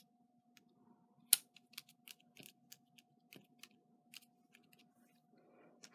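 Fingertips and long fingernails pressing and tapping on a paper card, a quick string of light clicks and taps with one sharper click about a second in. A faint steady hum runs underneath.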